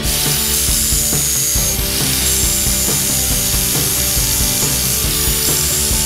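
Angle grinder running steadily, its disc grinding down fresh weld seams on a cast-iron iron body: a loud, even hiss of grinding with a high whine.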